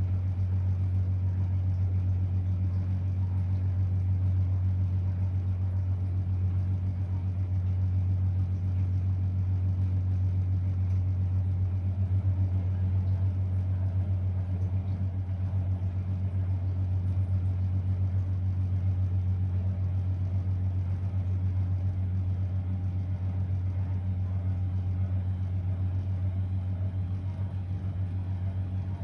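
Blomberg WA391 front-loading washing machine running with a steady low hum that does not change.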